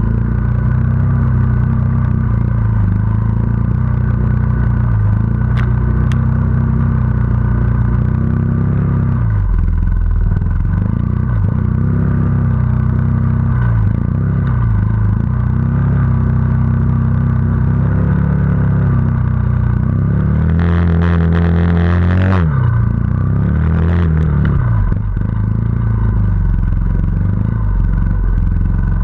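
Trials motorcycle engine running on a rough trail, its revs rising and falling with the throttle, with one hard burst of revs about two-thirds of the way through before it drops back. A couple of sharp knocks about six seconds in.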